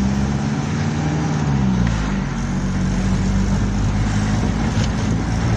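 Engine hum and road noise of a moving vehicle, heard from inside it. The engine note dips about a second and a half in.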